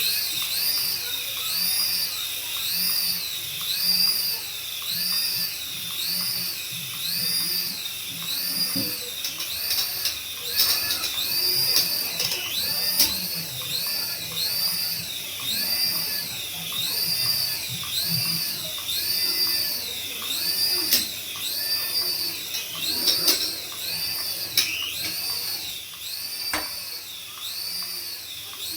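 Small electric motor of a toy RC helicopter whining at high pitch, the whine rising and falling evenly about once every second and a bit, with a few sharp clicks.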